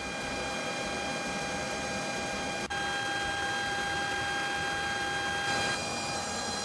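Oil-fired furnace burner and its electric blower running: a steady roar with an even, high whine over it. The sound breaks off very briefly a little under three seconds in.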